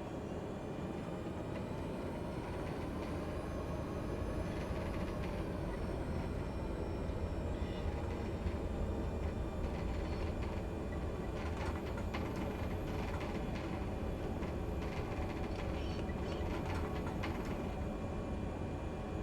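Cessna 208 Grand Caravan's PT6A turboprop engine and propeller droning steadily, heard from the cockpit. A whine rises and falls in pitch over the first several seconds. Short clicks and rattles come and go in the second half.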